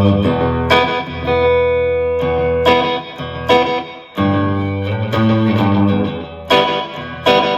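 Electric guitar played through a delay pedal set to a fast slapback, giving a twangy spaghetti-western sound: picked notes and struck chords, each with a quick repeat, ringing on between the strikes.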